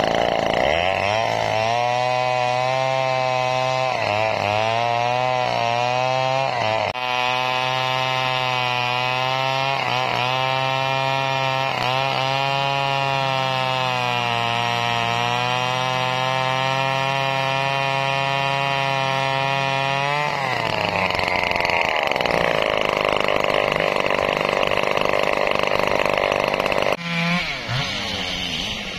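Two-stroke chainsaw cutting into a thick sonokeling (Indian rosewood) log. The engine drops from high revs to a lower, labouring pitch about a second in and holds there under load with small dips for some twenty seconds. It then rises back to high unloaded revs and drops off suddenly near the end.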